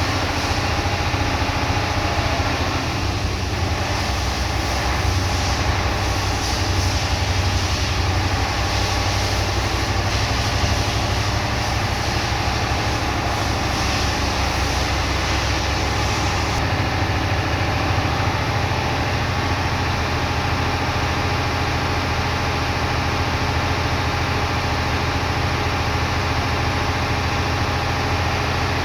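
Mercedes Actros truck's diesel engine idling steadily, with a high hiss over it that cuts off suddenly about seventeen seconds in.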